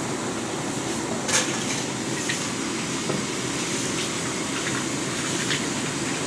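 LPG gas burner running steadily under a large aluminium pot of heating oil, a continuous rushing hiss with a few faint ticks.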